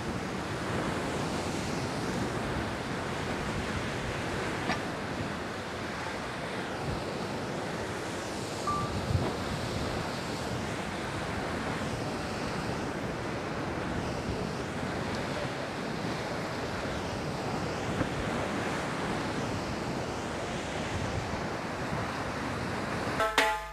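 Steady rushing outdoor noise, even throughout, with a faint click about five seconds in.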